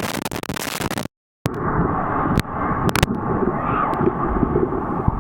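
Whitewater rapids rushing and splashing. About a second in, the sound cuts out for a moment and returns duller and lower, with a few sharp knocks.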